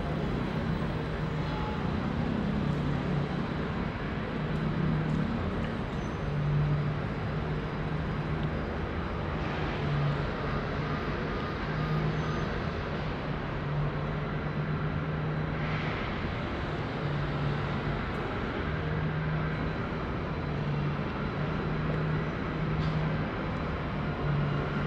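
Steady road traffic and city street noise, with a low hum that keeps breaking off and coming back.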